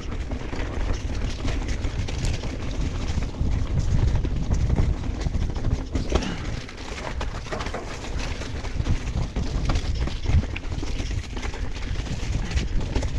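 Mountain bike riding down a rough dirt trail. Wind rushes over the camera microphone and the tyres rumble on the ground, with frequent knocks and rattles from the bike over roots and rocks.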